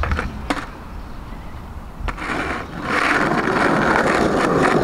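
Skateboard wheels rolling, starting about two seconds in and growing louder, after a couple of light clicks near the start.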